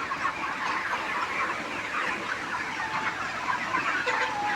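A large flock of chickens clucking and chirping all at once in a steady, dense chorus, with one longer drawn-out call about four seconds in.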